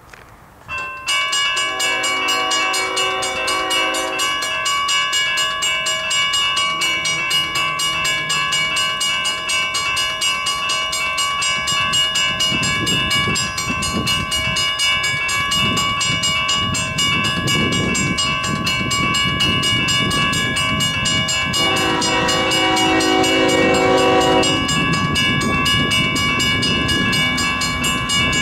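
Grade crossing bell ringing steadily from about a second in, while an approaching Union Pacific freight's lead GE C45ACCTE locomotive sounds two long horn blasts, one near the start and one near the end. The low rumble of the train builds as it draws closer.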